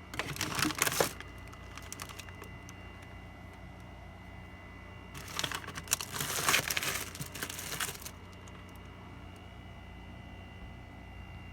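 Rattling and clattering of a mini fridge's interior shelf being handled, in two bursts: a short one in the first second and a longer one from about five to eight seconds in.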